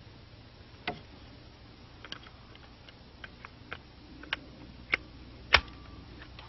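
Sharp clicks and knocks of metal and plastic rifle parts and tools being handled as a semi-automatic .223 rifle's wooden stock is swapped for a plastic one: a scatter of separate clicks, the loudest about five and a half seconds in.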